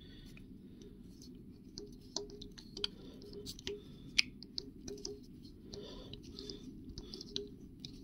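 Small hand tap being turned into a tiny hole in a metal part: faint, irregular clicks and scratches as it cuts thread, over a steady low hum.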